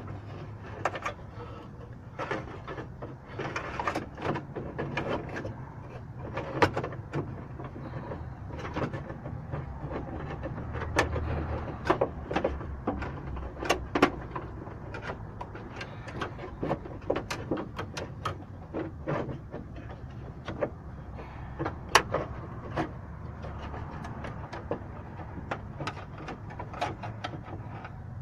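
Irregular small clicks and knocks of parts being handled as a car door lock cylinder is reassembled by hand, over a steady low hum.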